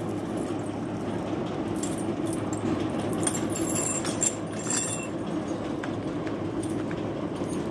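Metal chain clinking and jingling in short bursts as a cow's neck chain is handled and unfastened at the trough, over a steady low background noise.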